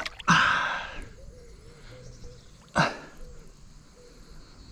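A person's sharp breaths: a long noisy exhale just after the start and a short sharp one a little under three seconds in.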